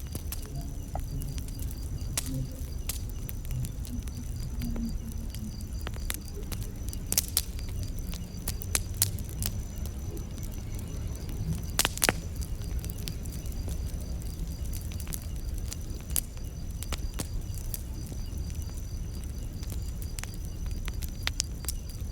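Campfire crackling: a steady low rumble of burning wood with irregular sharp pops and snaps, a few of them louder, about seven, nine and twelve seconds in. A faint, high, steady insect trill runs underneath.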